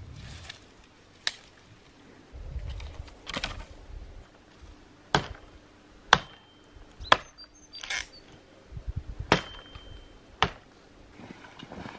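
Dry branches being broken by hand: about eight sharp snaps, roughly a second apart, with rustling of twigs between them.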